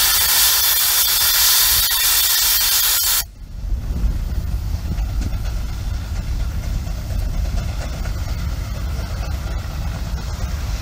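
1920 Minneapolis steam traction engine venting steam with a loud hiss that cuts off suddenly about three seconds in, leaving a low rumble.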